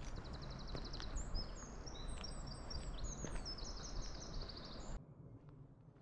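Footsteps on a sandy forest path over a low rumble, with a small songbird singing high and fast: first a rapid trill, then a run of quick sweeping notes. About five seconds in the sound cuts off abruptly to a much quieter background.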